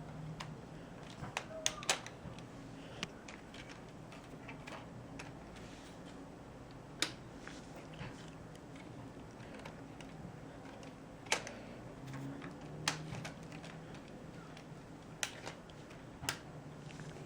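Scattered sharp clicks and taps of small hard objects, a few seconds apart with two in quick succession near the start, over a low steady hum.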